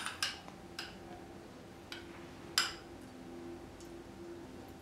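A handful of sharp clinks of a steel spoon against a glass bowl and the rim of a metal kadhai as oil is poured into the empty pan, the loudest about two and a half seconds in.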